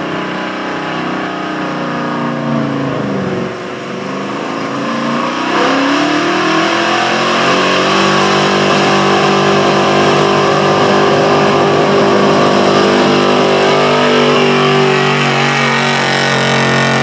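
Gasoline engine of a Dodge street-class pulling truck working at full throttle under the load of the sled. The revs sag about three seconds in, then climb and hold high and steady for the rest of the pull.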